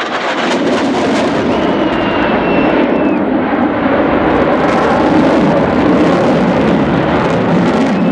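RAF Eurofighter Typhoon jet flying a display pass: a loud, steady jet roar that swells slightly towards the middle, with a thin high whine early on.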